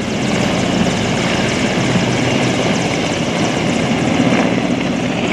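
Mi-17-type twin-engine military transport helicopter flying low on its approach to land, its rotors and turbines giving a loud, steady noise with a rapid beat from the blades.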